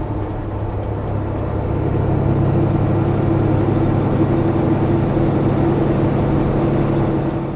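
CAT C15 diesel of a Peterbilt 379 semi pulling under load, heard from inside the cab, with a high whine that falls about a second in and climbs back again, as the revs drop and rise through a gear change.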